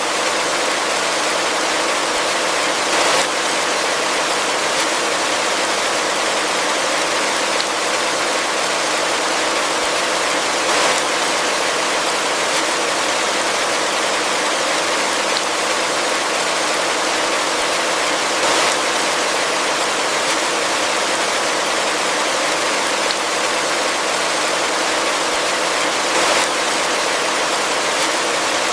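Heavy rain falling steadily, a dense, even hiss, with a brief slightly louder patter about every eight seconds.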